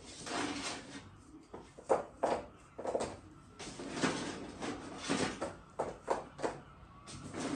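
Irregular scraping and knocking, with several sharp knocks about two and three seconds in.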